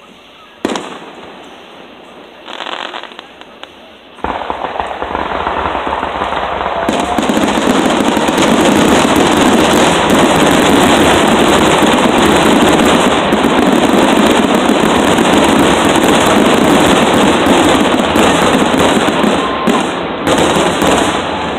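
Fireworks finale barrage: a single sharp bang about half a second in, then from about four seconds a dense, continuous rapid-fire run of aerial shell bursts and crackle that builds and stays loud.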